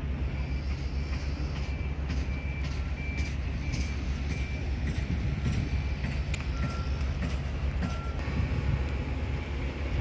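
Reversing alarm of a construction vehicle beeping about one and a half times a second through the first half, with a second, lower-pitched beeper sounding a few times after, over a steady low rumble.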